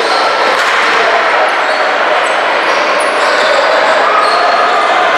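Basketball game noise in a gym: spectators' chatter and shouts echoing in a large hall, with a basketball bouncing on the court.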